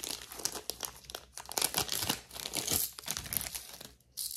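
Plastic packaging crinkling and rustling as it is handled, full of sharp crackles, with a brief lull near the end.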